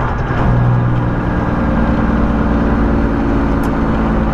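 Semi truck's diesel engine and road noise inside the cab while driving, a steady drone whose engine note changes about half a second in.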